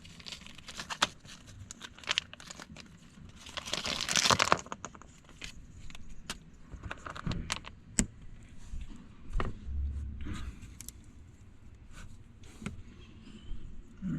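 Small plastic T-tap wire connectors clicking and rattling as they are tipped out of their packet and handled, with packaging crinkling. A louder rustle comes about four seconds in and a sharp click about eight seconds in.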